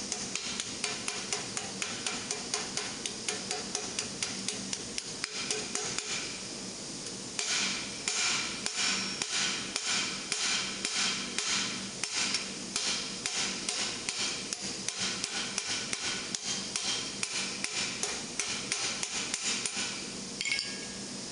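Hand hammer striking a steel gauntlet cuff over a steel stake in a rapid steady series, about three blows a second, defining and compressing a raised ridge in the plate. The blows get louder and brighter about seven seconds in.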